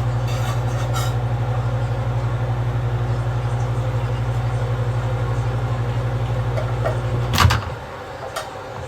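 Microwave oven running with a steady low hum, which cuts off with a click about seven seconds in as it finishes heating.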